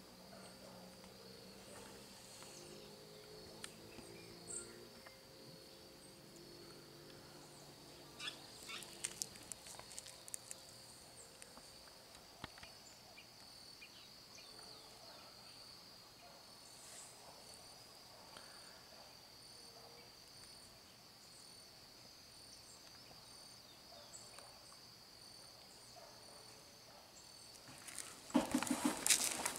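Insects chirring steadily at a high pitch, with scattered faint clicks and a louder burst of noise near the end.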